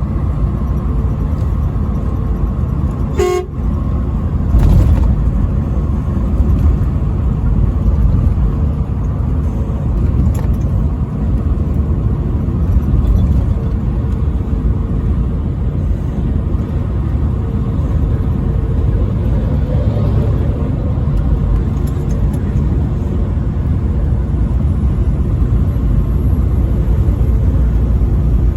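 Steady low road and engine rumble of a vehicle driving on an interstate highway, with a faint steady hum over it and one sharp click about three seconds in.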